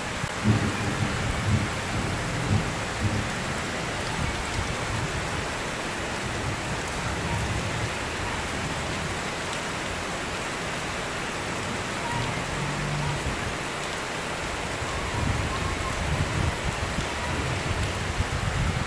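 Heavy rain pouring steadily, with a low rumble that comes and goes.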